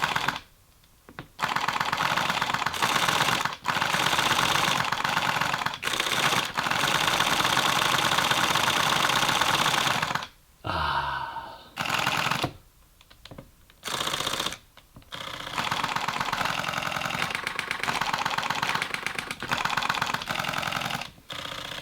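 Fujifilm X-T series mirrorless camera shutters firing in continuous high-speed bursts: long runs of fast, even clicks, the longest about nine seconds, stopping and restarting several times with short pauses between runs.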